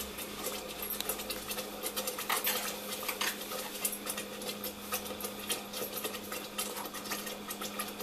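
Covered pan of thick tomato sauce simmering on the stove: rapid small pops and ticks from the bubbling sauce under a glass lid, over a steady low hum.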